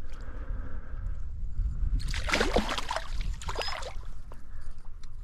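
Water splashing for about two seconds, starting about two seconds in, as a hooked trout is brought in at the surface of the stream. Under it runs a steady low rumble.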